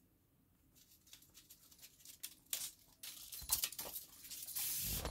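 Kitten batting and chasing a crumpled paper ball across the floor: scattered light crinkles and pattering taps, growing busier from about halfway, with a louder rustling hiss near the end.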